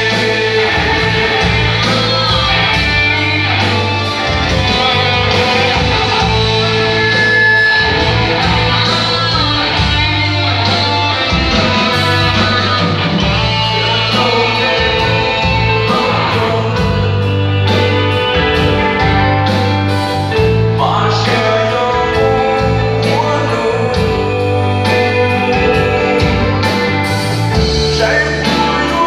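Amplified rock-style band music with a singer, played loud through a PA in a large hall: steady bass and drum pattern, guitar, and a sung melody.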